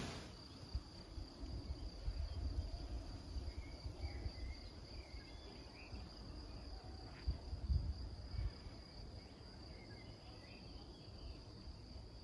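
Insects in a grassy meadow trilling steadily on one high note, with a few short faint bird chirps. A low gusty wind rumbles on the microphone.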